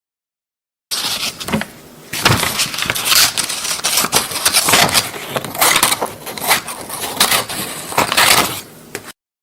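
Scissors cutting paper: a run of crisp, crackling snips with paper rustle, about one cut every second. It starts suddenly about a second in and stops abruptly near the end.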